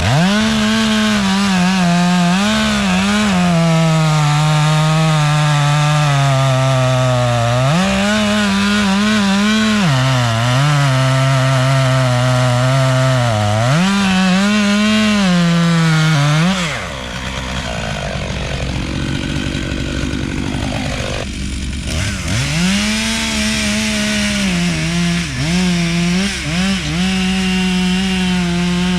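Two-stroke chainsaw cutting through a dead tree, its engine note sinking as the chain bogs into the wood and rising again as the cut is eased, over and over. About 17 seconds in it drops to a softer, lower sound for a few seconds, then picks up and starts cutting again.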